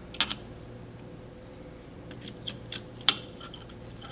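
Light metallic clicks and clinks of a stainless steel cap being fitted onto a piston-cylinder assembly and a hex driver engaging its screw. A couple of clicks come shortly in, then a run of sharp ticks about two to three seconds in.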